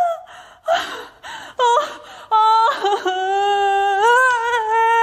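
A woman's short breaths and a brief rising cry, then one long, high cry held for about three seconds. She is crying out in alarm at a shark flopping about on the floor beside her.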